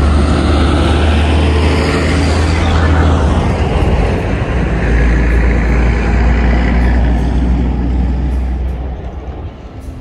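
A bus driving past close by, its engine running with a heavy low drone and tyre and road noise, fading away near the end.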